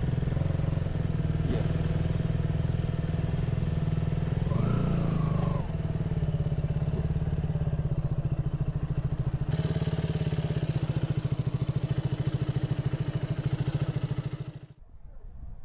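Motorcycle engine running steadily while riding, with a fast even pulse from the firing, then cutting off suddenly near the end.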